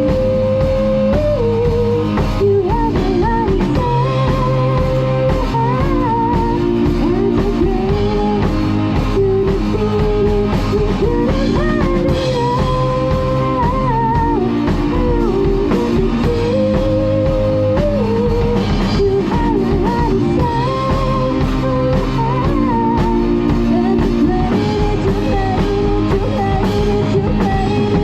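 A drum kit played along to a recorded pop song, with a woman singing the lead over guitar and a steady beat.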